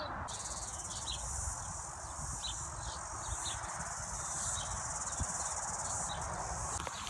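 Insects buzzing in a steady, high-pitched chorus, with short bird chirps scattered over it. The buzz starts just after the opening and cuts off abruptly shortly before the end.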